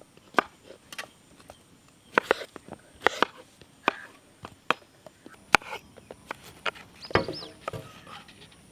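Knives chopping strawberries on wooden cutting boards: irregular sharp knocks of the blades striking the boards.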